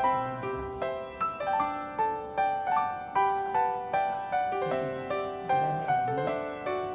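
Background piano music: a gentle melody of single notes struck at an even pace, each ringing and fading.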